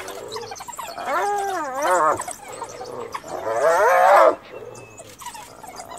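Cornered spotted hyena crying out in distress: two long, wavering, pitched calls, about a second each, around one and three and a half seconds in.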